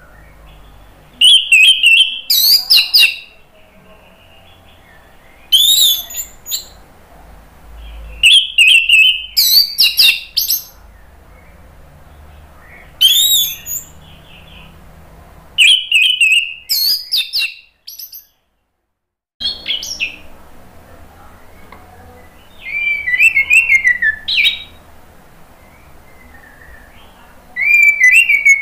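Orange-headed thrush singing: loud phrases of rich, gliding whistles, repeated in bursts every few seconds with short pauses between them.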